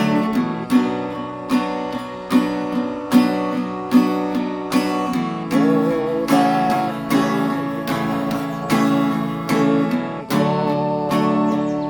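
Acoustic guitar strummed in a steady rhythm, a strum a little under a second apart, with a wavering melody line above the chords partway through.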